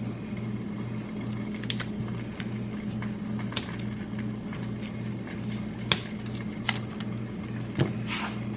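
A steady low electrical hum with scattered light clicks and taps, the sharpest about six seconds in and near the end.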